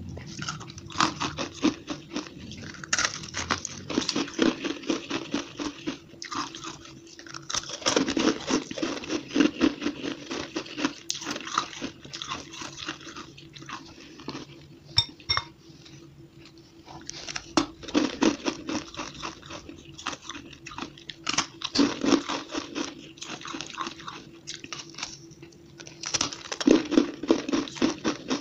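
Close-up crunching and chewing of packed frozen shaved ice, a dense rapid crackle of bites coming in bursts with a quieter lull about halfway through. The recording is played at double speed, which makes the crunches come quicker.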